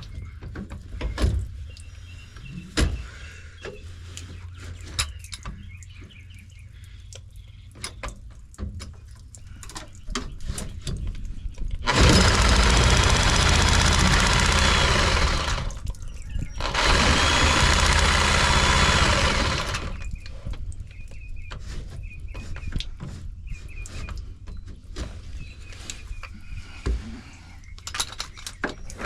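Reciprocating saw (Sawzall) with a short blade cutting a PVC black-water drain pipe in two runs of a few seconds each, with a short pause between. Scattered knocks and clicks of the saw and blade being worked against the pipe come before and after.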